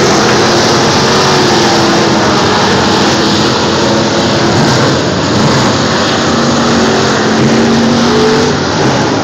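Several dirt-track street stock race cars running at racing speed around the oval. Their engines make a loud, continuous noise, with a few engine tones drifting slowly up and down as the cars pass and turn.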